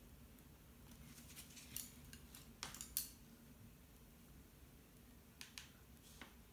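Faint, brief scratching strokes of a hand-held object rubbed over textured watercolour paper in the first half, then a few light clicks near the end, over near silence.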